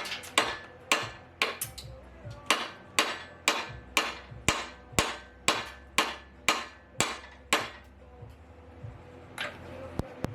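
Hammer blows knocking on a stuck engine part to work it loose, a steady beat of about two strikes a second that stops about seven and a half seconds in, with a couple of lighter knocks near the end.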